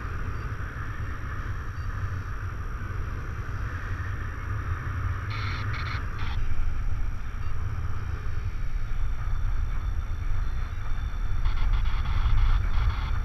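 Airflow buffeting a camera's microphone in paraglider flight: a steady heavy low rumble with a hiss above it. A few short sharp sounds come about six seconds in and again near the end.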